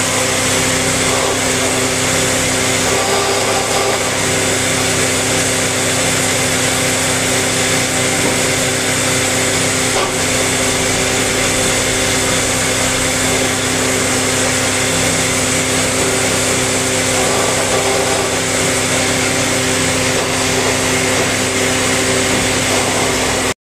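Belt-driven horizontal boring machine running steadily, its spinning bit cutting a slot into a pine door stile. A constant motor-and-spindle hum under the noise of the bit in the wood, with no pause until it cuts off sharply at the end.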